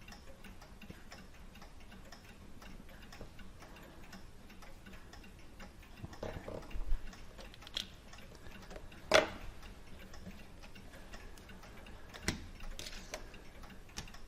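Faint, even ticking of a running clock, with a few sharper clicks of small metal parts and tools being handled on the clock movement, the loudest about nine seconds in.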